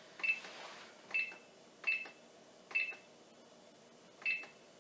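Thermomix TM31 timer buttons pressed one at a time to set the time, each press giving a click and a short high beep. Five beeps, most under a second apart, with a longer pause before the last.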